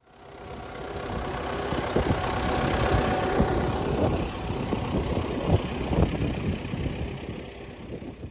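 Tractor engine running steadily, with low knocking under a steady hum; it fades in over the first second and fades out near the end.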